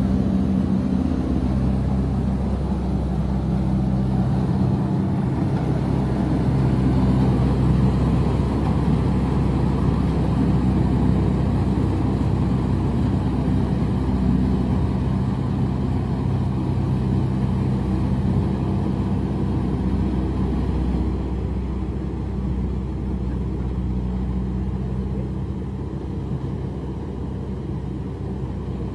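Motorised rice thresher running steadily, an engine hum under the noise of the threshing machinery, easing slightly in level over the last several seconds.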